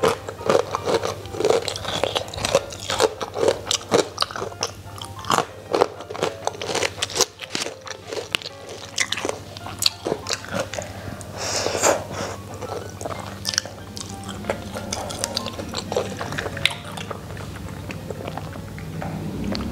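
Close-up crunching and chewing of crunchy food eaten with rice: many sharp crunches in the first half, then softer, sparser chewing.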